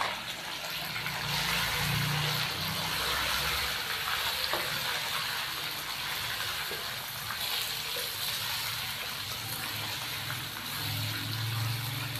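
Raw, freshly washed chicken pieces sizzling steadily in hot oil in a nonstick kadai as they are stirred with a wooden spoon, with a few faint knocks of the spoon.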